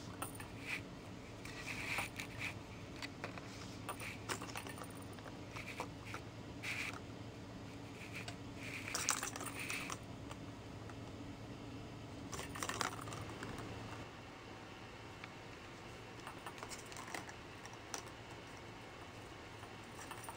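Plastic balls clicking and rattling in a plastic cat ball-track toy as a kitten bats at them: irregular clicks and short clatters, fewer and fainter in the last several seconds.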